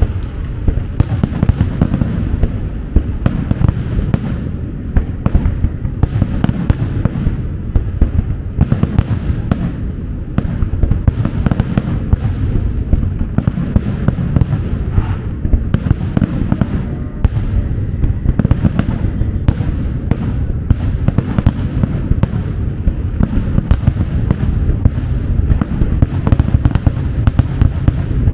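Fireworks finale: a continuous barrage of aerial shells bursting, many sharp bangs a second over a heavy rumble, with no pause.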